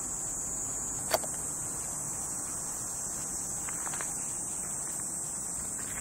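Steady high-pitched drone of insects chirring, with one sharp click about a second in.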